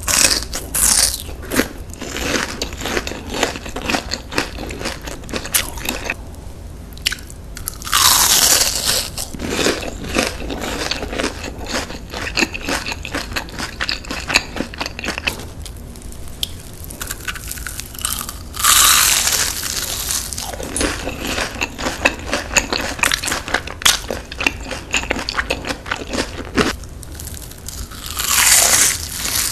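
Crunching bites into panko-breaded fried shrimp, with crisp crackling chewing between bites. Three loud bites come about 8 seconds in, about 19 seconds in and near the end.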